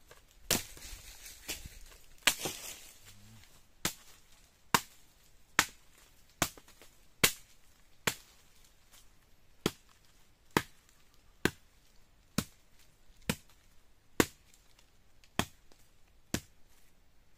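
Machete chopping a dry dead branch into firewood: a steady run of sharp single chops, about one a second, well over a dozen strikes.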